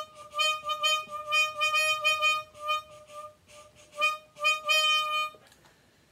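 Toy saxophone blown in a run of short repeated notes, all on one reedy pitch, stopping about five seconds in.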